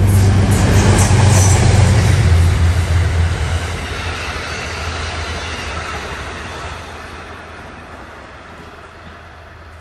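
Train passing close by and then moving away: a loud low rumble with wheel-on-rail noise that peaks in the first few seconds and then fades steadily.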